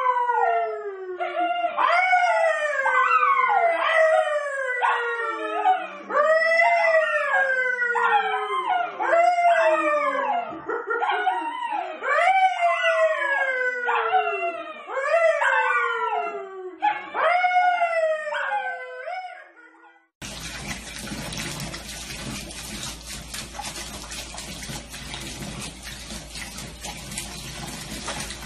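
A man and a curly-coated brown dog howling together: a string of short howls, each sliding down in pitch, about one a second. About 20 seconds in they stop, and a steady rush of running water follows.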